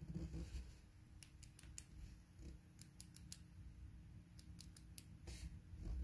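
Small metal number dials of a TSA combination cable padlock clicking as they are turned by a fingertip, in quick runs of a few clicks at a time, with brief handling rubs on the lock near the start and near the end.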